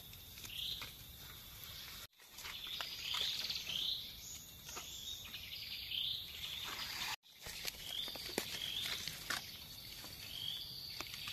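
Wild birds chirping over and over in short, high notes, with light clicks and rustles as mushrooms are cut and handled in the leaf litter.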